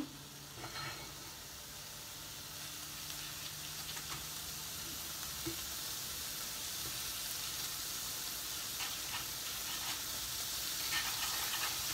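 Sliced carrots sizzling in melting butter in a frying pan, stirred with a wooden spatula that scrapes lightly against the pan now and then. The sizzle grows gradually louder as the turned-up heat takes hold.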